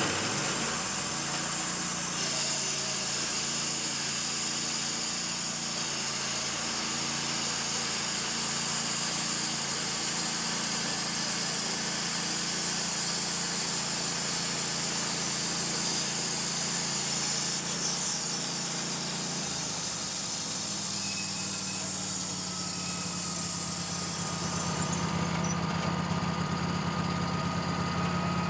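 Wood-Mizer LT-15 band sawmill running steadily while its blade saws a small spruce log. Near the end the motor's note changes and the high hiss drops away.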